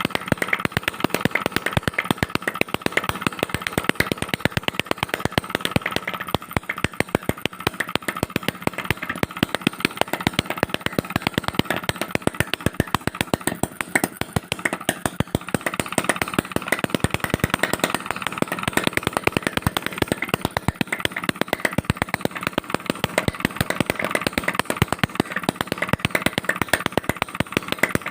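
Homemade two-stroke petrol engine made from a refrigerator compressor, running steadily with a rapid, even train of sharp firing pops.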